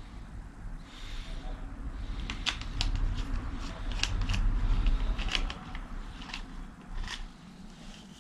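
Hand screwdriver working the small screw of a Busch & Müller IQ-Tec bicycle headlamp, with scattered light clicks and scrapes of metal on plastic. A low rumble from handling swells between about one and six seconds in.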